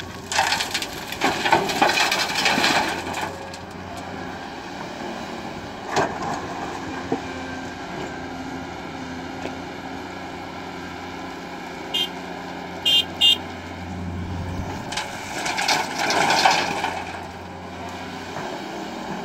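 Komatsu PC210 hydraulic excavator's diesel engine running steadily, with two stretches of gravel and stones rattling and scraping. The first is a bucket-load dropping into a steel dump-truck bed near the start. The second is the bucket digging into gravel about fifteen seconds in, just after the engine note rises under load. A few short high beeps sound around twelve to thirteen seconds.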